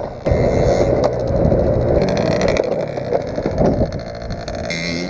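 50cc moped engine running while the scooter lies tipped over in the snow after a spill, with a couple of knocks in the first second.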